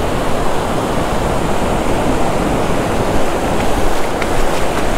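Ocean surf washing up the beach, with foamy water spreading over wet sand close by: a steady rushing noise.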